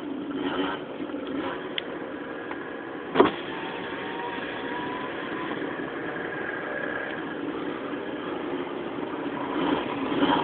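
Steady car engine and road noise heard from inside the cabin of a moving car, with one sharp knock about three seconds in.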